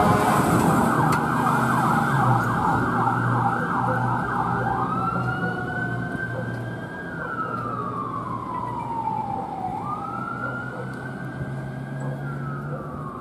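Fire engine siren on a rapid yelp, switching about four and a half seconds in to a slow wail that rises, holds and falls twice, fading as the engine drives away.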